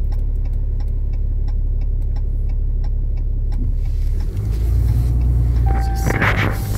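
Ram 2500 pickup's engine running, heard from inside the cab, with light regular ticking over a steady low rumble. About four seconds in, the engine note grows louder and deeper as the truck pulls away.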